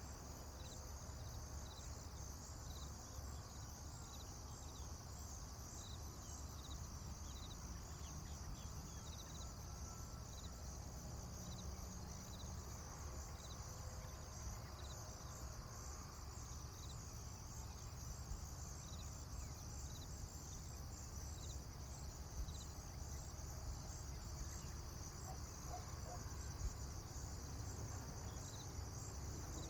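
Rural morning ambience: a steady high chorus of insects such as crickets over a low rumble. A short chirp repeats about once a second in the first part and again near the end.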